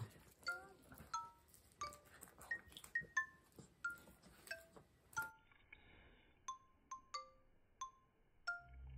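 Background music: a gentle melody of single bell-like notes, each ringing briefly and dying away, about two notes a second.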